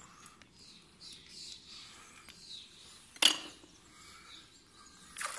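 Small scrap metal being handled on a magnet-fishing magnet, with faint rustling, then one sharp metallic click about three seconds in and a softer click near the end.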